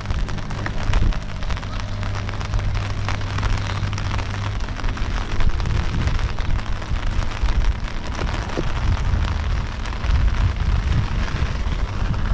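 Heavy rain pattering, with gusty wind buffeting the microphone as a low rumble. A low steady hum runs under it for the first four seconds or so.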